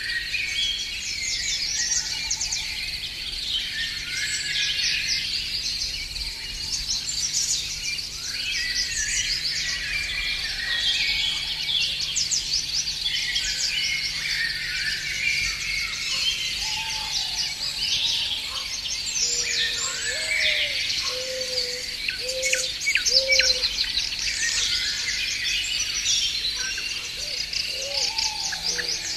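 A chorus of many songbirds singing together: a dense, continuous mix of high chirps and trills, with a short series of lower repeated notes in the second half.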